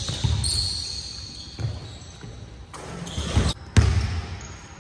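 Basketball bouncing on a hardwood court: several irregular thuds, echoing in a large gym, with a brief high squeak near the start.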